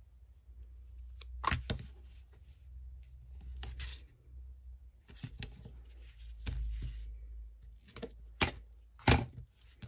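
Double-sided tape and card being handled: rustling with a handful of sharp crackles and taps as tape is pulled from its roll and pressed along the edge of a folded card, over a low steady hum.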